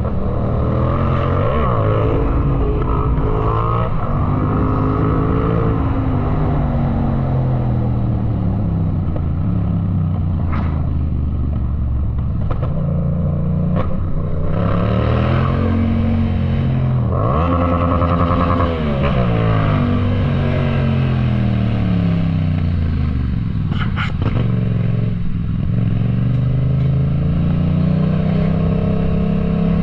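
Yamaha MT-07's 689 cc parallel-twin engine ridden hard, revving up and dropping back repeatedly as it accelerates, shifts and slows. A few sharp clicks or pops come in between the revs.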